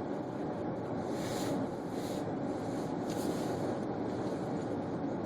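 A car driving slowly through deep snow, heard from inside the cabin: a steady low rumble of engine and tyres, with two brief hissing swishes, about a second in and again about three seconds in.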